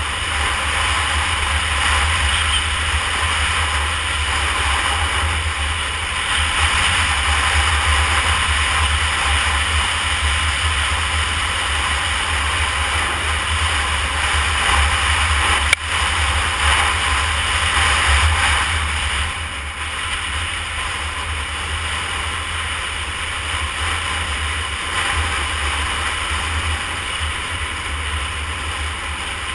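Wind rushing over the microphone of a Honda CBR250R motorcycle riding at road speed, with the bike running underneath. The rush is loud and steady, with one sharp click about halfway through.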